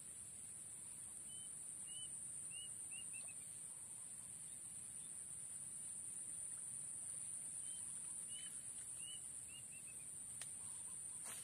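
Swamp-side ambience: a small bird gives short chirps in quick clusters of two to four, over a steady high-pitched drone and a low wind rumble, with a sharp click near the end.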